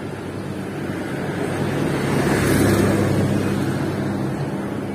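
A motor vehicle passing on the road, its engine hum and road noise swelling to a peak about halfway through and then fading.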